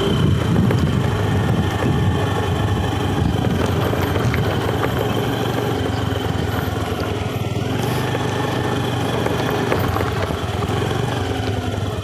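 Motorcycle engine running steadily while riding along, easing off near the end.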